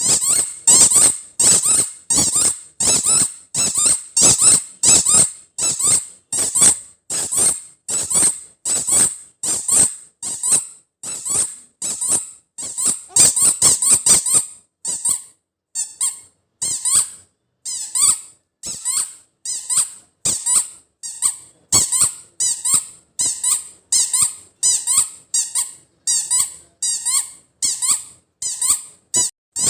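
Spiky squeaky toy ball being squeezed over and over, giving short high 'chu chu' squeaks about twice a second, with a brief pause about halfway through.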